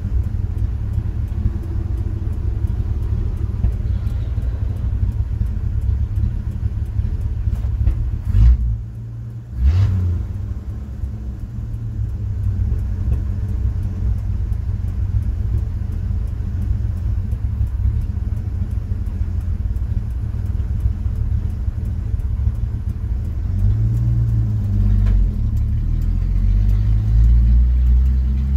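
1969 Chevrolet C10 pickup's engine idling with a steady low rumble, heard from inside the cab. About eight to ten seconds in the sound briefly drops out, with a thump on either side. Near the end the engine revs up as the truck accelerates away.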